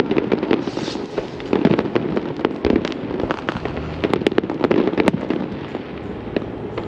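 Fireworks display going off: a dense, continuous run of bangs and crackling, with a flurry of sharp cracks about four to five seconds in.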